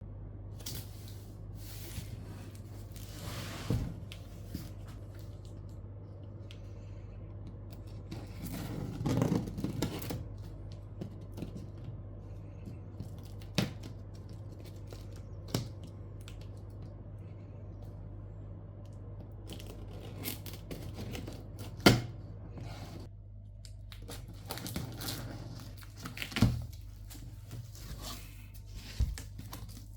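A box being unpacked by hand: tape and packing material tearing and rustling, with scattered knocks and clicks, the sharpest about two-thirds of the way through, over a steady low hum.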